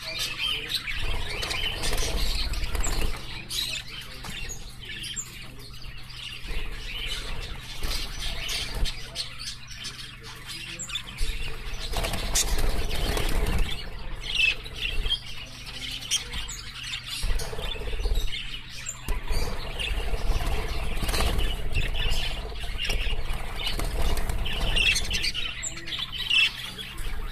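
A flock of cage birds, budgerigars and other parrots among them, chirping and squawking, with wings flapping over a low rumble.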